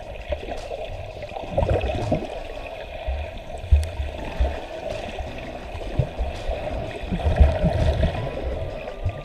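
Muffled underwater water noise heard through a submerged camera, with irregular low thuds and splashing as front-crawl swimmers' arm strokes and kicks churn the water close by.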